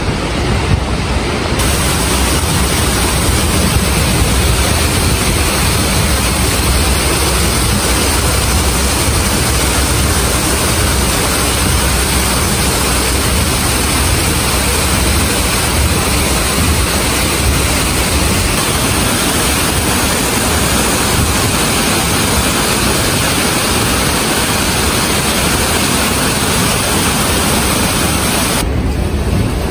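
Steady rush of water pouring down a stepped wall waterfall and splashing from fountain jets into a pool.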